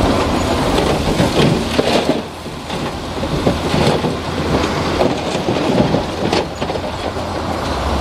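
Komatsu D60P crawler bulldozer working: its diesel engine runs steadily under load while the steel tracks clank and the blade pushes through broken rock, giving frequent irregular knocks and scrapes.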